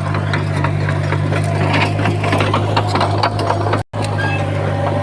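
Komatsu bulldozer's diesel engine running with a steady low drone, with clanking and scraping from the tracks and pushed soil. The sound drops out for an instant a little before four seconds in.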